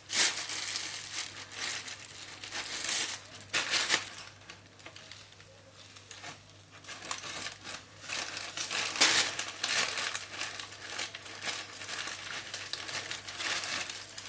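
Plastic cling film and thin plastic bags crinkling and rustling as they are peeled off a wrapped fish by hand, in irregular bursts with a quieter stretch midway.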